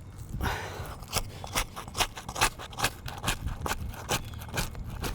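A roof shingle being pried loose from its strongly bonded seal: a rapid, irregular run of sharp cracks and snaps with scraping. The seal tearing is damaging the shingle.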